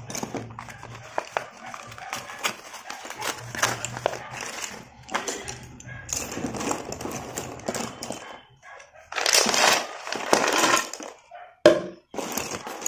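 Slate pencils clicking and clattering against one another as they are picked up and handled in a cardboard box full of them, with a longer scraping clatter about nine seconds in and a single sharp click near the end.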